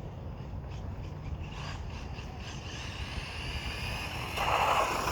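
Electric RC short course truck driving, its motor whining higher as it speeds up, with a louder rush of tyres over the ground about four seconds in. Wind rumbles on the microphone.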